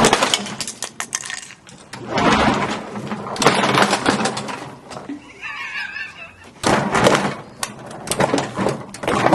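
Lawnmower blade chewing up a plastic toy: loud, irregular crunching and clattering bursts, with a brief warbling tone about five and a half seconds in.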